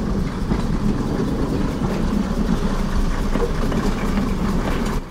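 Underfloor diesel engines of a first-generation diesel multiple unit idling steadily while the train stands still, a low, even running sound.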